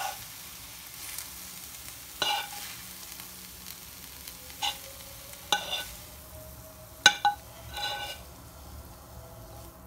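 A metal spoon scraping cooked vegetable filling out onto a ceramic plate, with about five sharp, ringing clinks of spoon against dish spread through.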